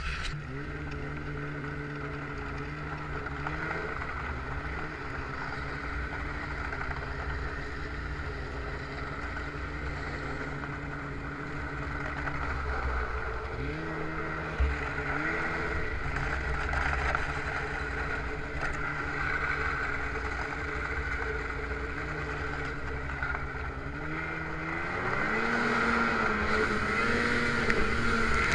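Snowmobile engine running under the rider, its pitch stepping up and down with the throttle several times, over a steady rushing hiss. Near the end the revs climb and it gets louder as the sled throttles up to skip across open river water.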